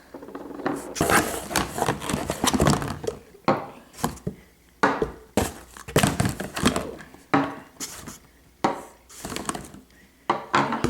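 Plastic sippy cups being handled and set down one after another: irregular knocks and clatters with rustling in between.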